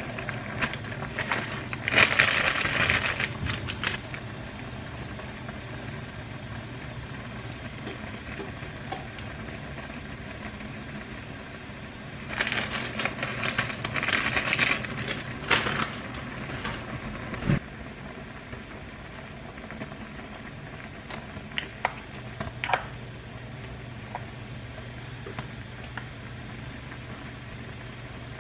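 Water boiling in a saucepan with instant ramen noodles, over a steady low hum. Twice, about two seconds in and again from about twelve to sixteen seconds, plastic packets crinkle as the ramen's flake and sauce sachets are shaken into the pot, with a few light clicks later on.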